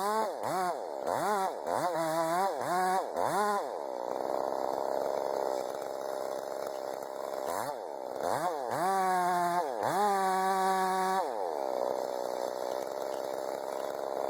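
Chainsaw engine revving up and dropping back in quick blips, about seven in the first few seconds. After a steadier stretch it holds high revs twice for about a second each near the end, then falls back.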